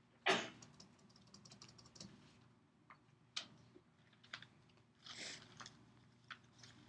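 Scattered clicks and taps from hands on a laptop and papers on a desk, with a sharp knock just after the start and a short rustle about five seconds in.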